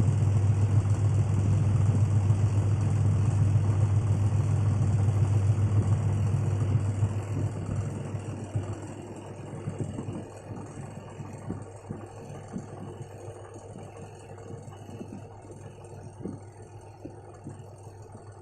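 Washing machine spinning at high speed with a loud, steady hum, then winding down from about seven seconds in as the drum slows, leaving a quieter rumble with scattered light knocks.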